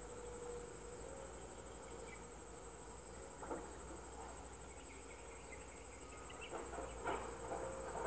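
A steady, high-pitched insect trill, cricket-like, with a few faint short sounds in the second half.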